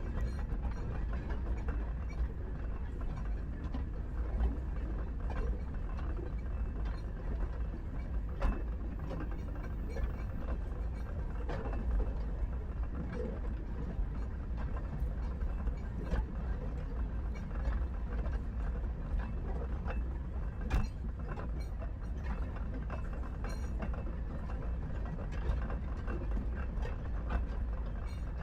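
A narrow gauge train running along the track: a steady low rumble with irregular clicks, knocks and rattles.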